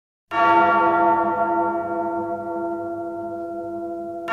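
A large bell is struck once and rings on, slowly fading, then is struck again at the very end: the tolling-bell opening of a music track.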